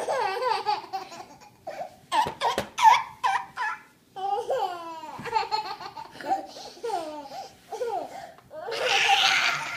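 A baby laughing in repeated bursts through a peekaboo game. The loudest is a breathy, shrieking laugh near the end.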